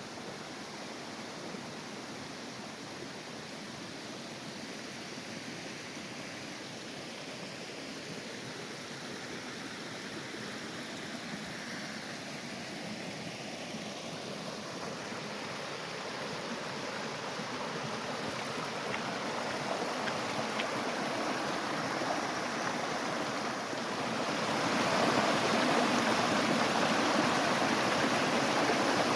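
Mountain stream rushing steadily, slowly getting louder and then markedly louder from about 24 seconds in.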